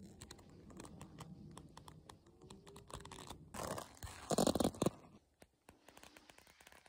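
Dry twigs and leaf litter crackling and rustling: a run of small sharp clicks, with a louder rustling crackle about three and a half seconds in that lasts over a second.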